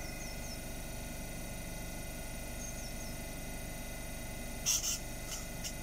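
Electric multiple-unit train standing at the platform, its onboard equipment giving a steady hum with a couple of held tones. About three-quarters of the way through come two short bursts of hiss, followed by a few faint clicks.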